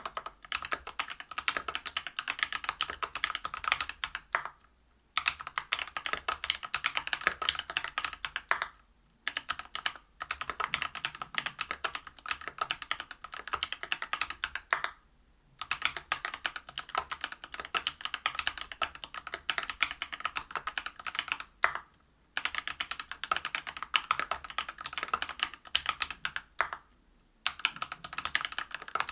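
Fast typing on a mechanical keyboard with lubed Everglide BeesWax 67g linear switches, a brass plate and PBT keycaps, in runs of rapid keystrokes broken by brief pauses every few seconds.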